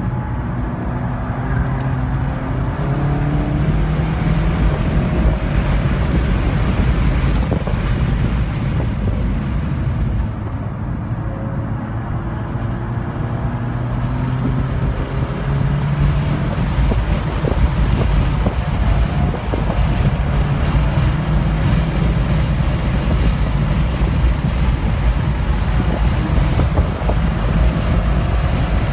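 2015 Volkswagen GTI's turbocharged 2.0-litre four-cylinder running hard on track, heard from inside the cabin with tyre and wind noise. Its pitch rises as it accelerates, with a brief easing of the engine about ten seconds in before it pulls again at full throttle.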